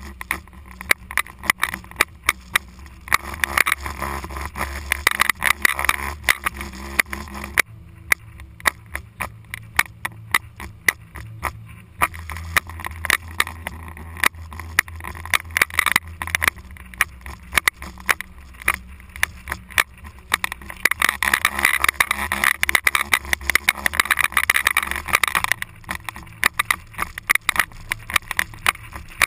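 SUV driving over sand dunes, heard from a camera on its outside: the engine's steady low rumble and tyres in sand, with frequent sharp clicks and knocks from the rough ride. The noise swells louder twice, a few seconds in and again past the middle.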